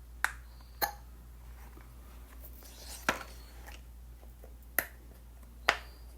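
Bubbles of a silicone pop-it fidget toy being pressed: five sharp single pops at uneven gaps, the last ones the loudest.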